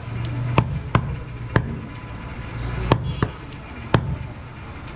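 A heavy butcher's knife chopping goat meat against a wooden chopping block: about seven sharp chops at uneven spacing, over a steady low hum.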